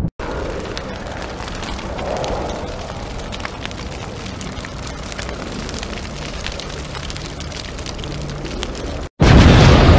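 A low rumble with scattered crackles. It drops out for a moment near the end and comes back louder.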